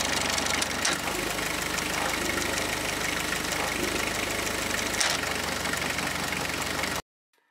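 A boat's inboard engine running steadily in the engine compartment, with a fine even beat and a low rumble that shifts about a second in and again about five seconds in. It is the test run after the propeller shaft was recoupled to the transmission, and it cuts off suddenly near the end.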